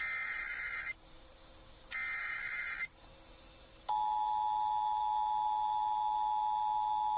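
Emergency Alert System tones from an FM radio broadcast. Two one-second bursts of SAME digital header data, a second apart, open the alert. At about 4 s the steady two-tone EAS attention signal begins and holds.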